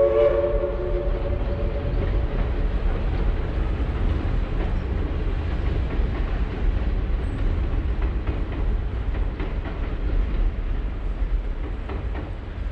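Southern 4501 steam locomotive's passenger train rolling across a steel bridge: a steady rumble with faint wheel clicks, slowly fading as it moves away. The locomotive's steam whistle chord trails off about a second in.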